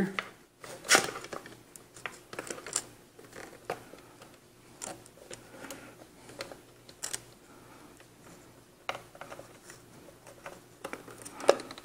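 SATA data and power cable plugs being pushed onto the back of an optical drive by hand: irregular small plastic clicks, scrapes and rustles of cable handling, the loudest about a second in.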